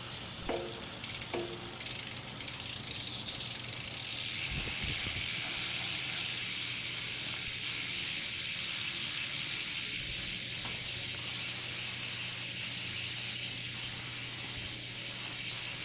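A steady hiss of liquid being sprayed while a bicycle is washed down, starting about two seconds in, a few light knocks before it.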